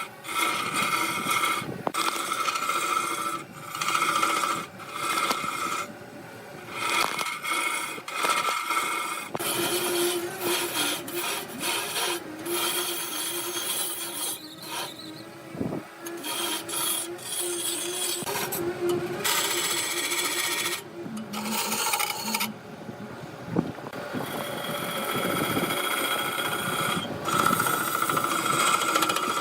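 Wood lathe running while a turning tool cuts and scrapes the spinning wood, a steady whine over a rasping scrape. The sound breaks off and changes abruptly every few seconds.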